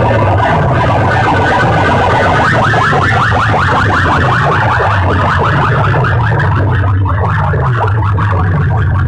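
Loud amplified music blasting from banks of horn loudspeakers on a competition sound rig. It has a repeating bass beat under a fast, warbling, siren-like electronic effect.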